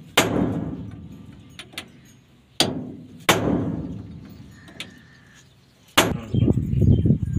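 Hammer blows on a chisel held against the loose pinion nut of a Hino truck's rear differential, knocking the nut tight as a makeshift fix. There are four sharp ringing strikes and a few lighter taps, then a low rumbling clatter near the end.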